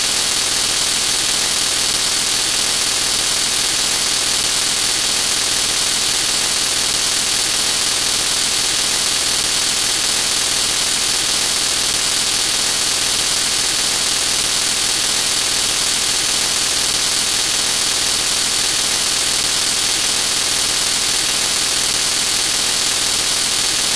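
A steady, unbroken hiss of noise at an even level, brightest in the high range, with no separate clicks or strokes.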